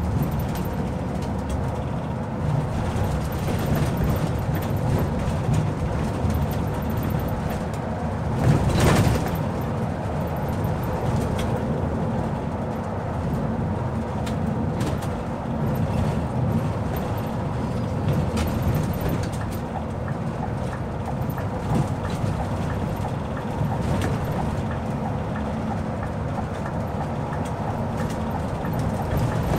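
Scania K 360 IB coach heard from inside the cab while under way: steady rear-engine and road rumble, with one brief louder rush about nine seconds in.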